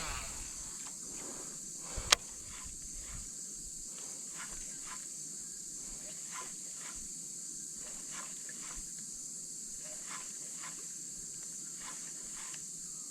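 A steady high-pitched drone of insects, with a single sharp click about two seconds in and faint, irregular ticks and steps throughout.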